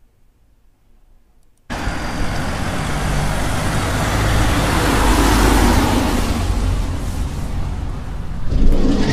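Van running, starting abruptly about two seconds in and growing louder toward the middle.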